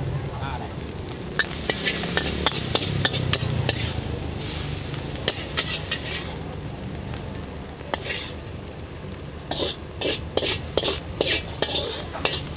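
Metal spatula scraping and clanking against a large wok while flat rice noodles stir-fry over charcoal, under a steady sizzle. Clusters of quick scrapes come about two seconds in and again near the end.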